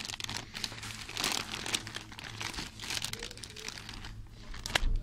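Cellophane packaging crinkling as wrapped items are handled close to the microphone, in irregular rustles, with a sharp tap near the end.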